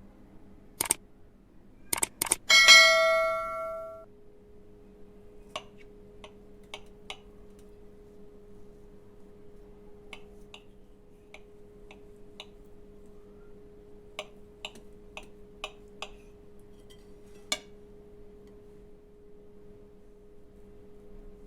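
A metal utensil strikes dishware with a ringing clink that fades over about a second and a half, after a few sharp clicks. Scattered light taps follow.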